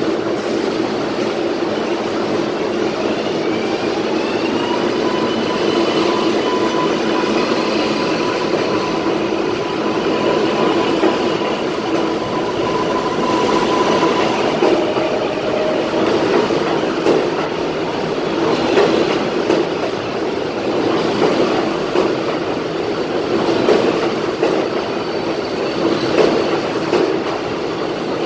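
R188 subway train pulling out of the station and gathering speed. Its motors give a rising whine in the first few seconds, then hold a steady tone, and in the second half the wheels click rhythmically over the rail joints as the cars roll past faster.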